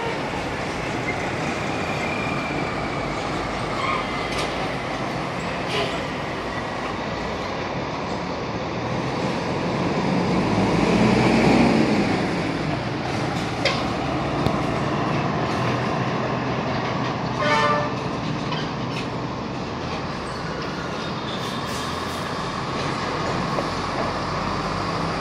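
Heavy container trucks' diesel engines running in a truck yard, a steady low rumble that grows louder about ten seconds in and then eases off. A few short knocks are heard along the way.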